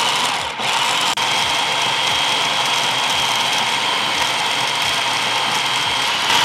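Electric food processor running, its blade mincing peeled ginger and garlic, with a steady high motor whine. It cuts out briefly twice in the first second or so, like short pulses, then runs continuously.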